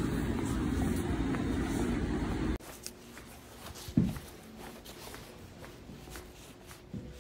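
Outdoor street noise, a dense low rumble heard while walking, that cuts off abruptly. Then quieter indoor room sound with a sharp knock about four seconds in and a softer one near the end.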